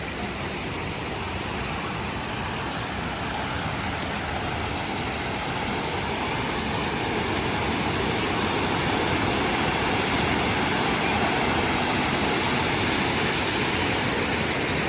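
Waterfall rushing: a steady wash of falling water that grows gradually louder.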